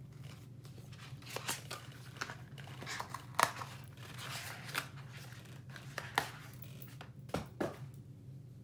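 Packaging being handled as small baby booties are taken out of a gift box: irregular crinkling and sharp crackles, the loudest about three and a half seconds in, over a steady low hum.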